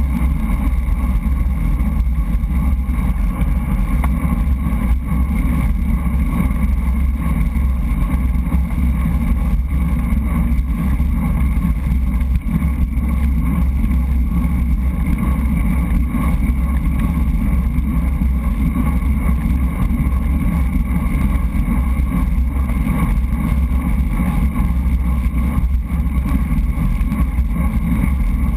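Steady, loud wind rumble on a GoPro mounted on a moving road bike, with road and tyre noise underneath, unchanging as the bike rolls along at speed.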